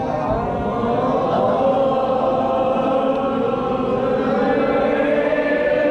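A large group of people singing together in unison, a slow song with long held notes.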